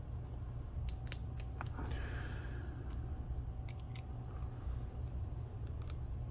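A sharp blade being worked into the glued edge of an iPhone screen: a few faint small clicks and a short scrape about two seconds in, over a steady low hum.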